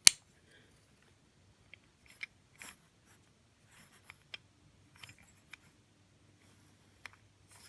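Handling noises of small wooden toy trains: a sharp click right at the start, then scattered light clicks and brief rustles as the pieces are picked up and turned over.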